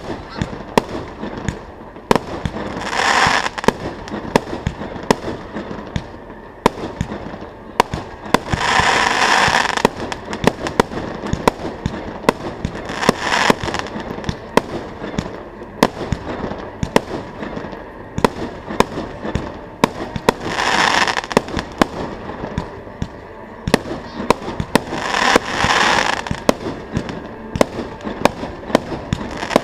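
Fireworks display: a dense, irregular run of sharp bangs from exploding shells, with about five louder hissing, crackling swells of about a second each.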